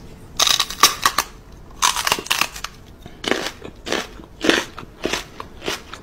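Crunchy nibbling and chewing sounds from a person mouthing a dog's paw as if eating it. It comes first in two quick runs of crackly bites, then in several shorter separate bursts.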